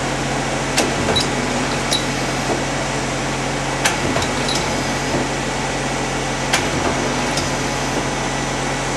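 Daewoo Puma 200LMSC CNC lathe's 12-station turret indexing: a sharp clack about every three seconds, each followed by lighter clicks, over the machine's steady hum.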